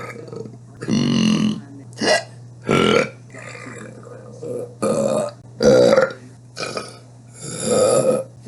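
A woman's burps, about eight of them cut back to back, some short and some drawn out, the loudest about six seconds in and a longer one near the end.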